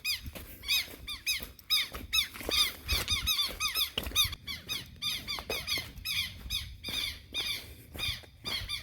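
A chorus of frogs calling at the water's edge: many short, squeaky calls that rise and fall in pitch, several a second and overlapping.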